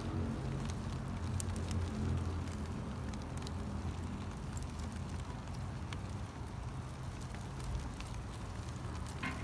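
Wood fire crackling, with scattered sharp snaps and pops over a steady low rumble.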